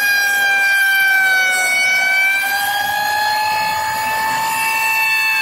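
Rotary tool on a homemade CNC machine cutting into a pine board: a high, steady motor whine that sags slightly in pitch about a second and a half in and climbs back later as the bit's load changes.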